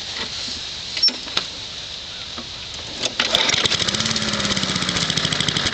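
Push mower's small single-cylinder engine being pull-started: a sharp click about a second in, then about three seconds in the engine catches and runs fast and unevenly for a few seconds, its speed rising and sagging, on the little fuel the primer gave it.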